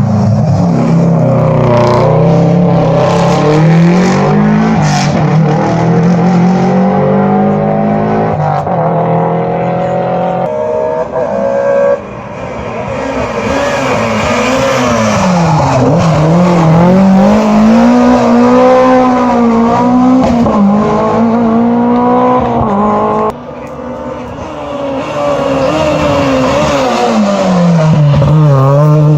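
Rally car engines through a hairpin bend, revving hard. The engine note repeatedly falls as the car slows for the bend and climbs as it accelerates out. The sound cuts abruptly to a new pass about 12 seconds in and again about 23 seconds in.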